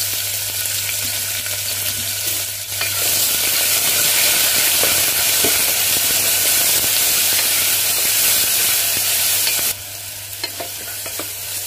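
Chopped onion and green chillies frying in hot oil in a pressure cooker, sizzling steadily, with the light clicks of a spoon stirring them. The sizzle grows louder about three seconds in and drops off suddenly near the end.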